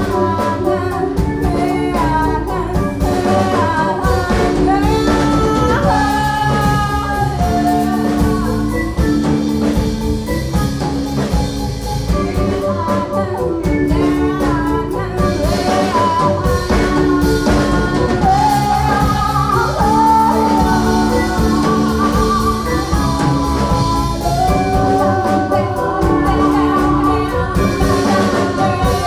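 Live band performance: two women singing a melody together over a band with keyboard and drums, at a steady loud level.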